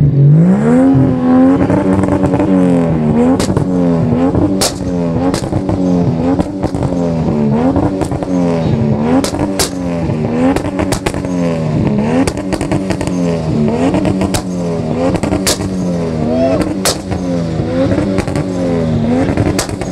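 Nissan Skyline R32 engine revved hard over and over, its pitch climbing and dropping about once a second. Loud, sharp exhaust pops and bangs go off throughout.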